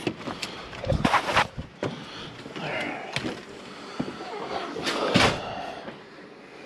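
A door opening and closing, heard as sharp clicks and knocks with two longer scraping, rustling bursts about a second in and about five seconds in, mixed with a handheld phone rubbing against clothing.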